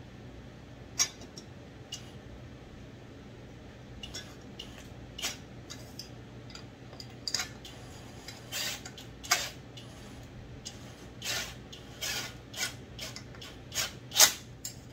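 Light metal clinks and taps as a modified muffler is worked onto a chainsaw with hands and a small tool. The clicks are scattered at first and come closer together in the second half, over a faint steady hum.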